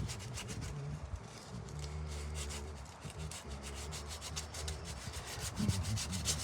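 Sandpaper rubbing back and forth over cured Bondo body filler on a wooden brick mold, in quick, rhythmic scratching strokes, smoothing the patch toward a finished surface.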